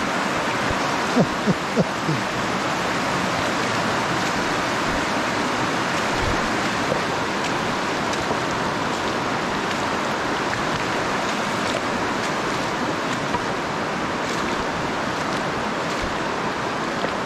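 Shallow river water rushing steadily over a rocky streambed, with three short blips about a second in.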